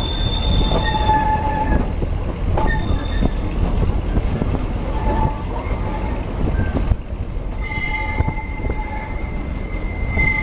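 Narrow-gauge train carriage running along the track with a steady rumble, while the wheels squeal in high tones that come and go, with a longer steady squeal over the last two seconds or so.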